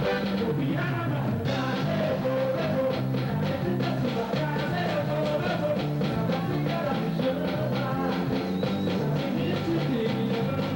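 A band playing music, with a steady drum beat and a repeating bass line under sustained instrument notes.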